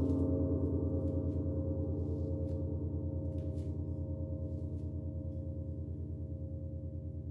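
A gong ringing on after being struck, slowly fading, its tone wavering in a fast, even pulse.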